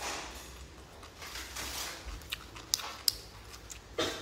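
Clear plastic snack bag rustling and crinkling as it is handled, with a few light sharp clicks around the middle.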